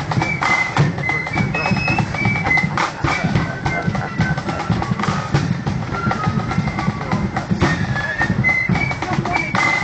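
Marching flute band playing a tune on the march: a high flute melody stepping from note to note over a steady beat of bass drum and side drums.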